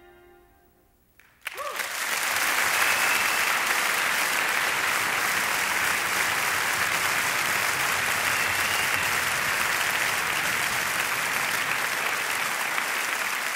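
The last note of a song dies away, and about a second and a half in an audience breaks into applause that goes on steadily.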